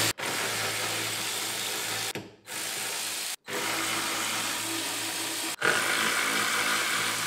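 A handheld power tool running in four short runs, about one to two seconds each, stopping sharply between them, as it spins out the 13 mm bolts holding the strut brace.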